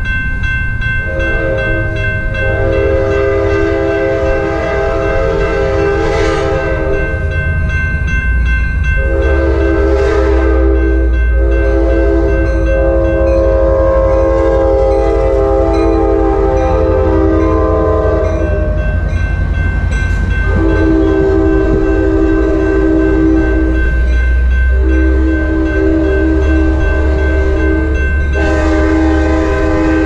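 Sounder commuter train's locomotive horn sounding four long blasts, the third shorter (long, long, short, long), as the train approaches and passes the grade crossing. Under it the crossing bell rings steadily, and a deep rumble of the passing train builds as it reaches the crossing.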